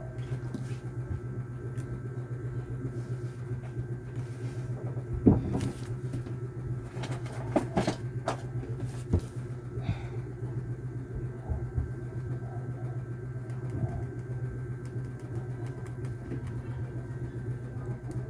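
Steady low machine hum with a few sharp clicks and knocks, the loudest about five seconds in and a cluster between seven and nine seconds.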